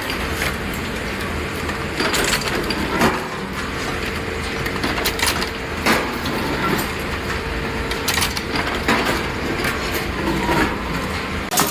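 Machinery running with a steady low rumble and a faint hum, with irregular knocks and clatters every second or two.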